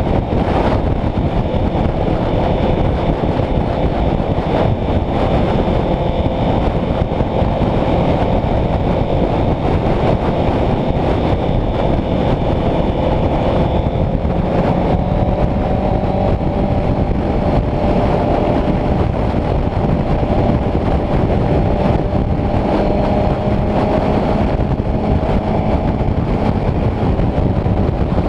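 Heavy wind rush over a Honda CBR650F's inline-four engine running at road speed. The engine note rises slightly about halfway through.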